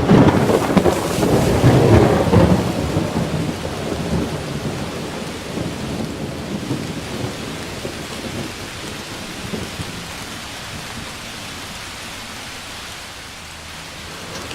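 A clap of thunder rumbles for about the first two and a half seconds, then steady rain goes on, slowly growing quieter.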